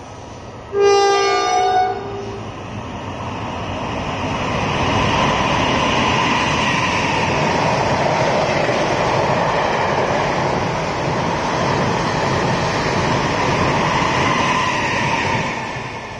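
A Taiwan Railway Tze-Chiang push-pull (PP) express train sounds its horn once, a loud chord of about a second, then passes at high speed: a rush of wheels on rail and air that builds, holds steady for over ten seconds and eases off near the end.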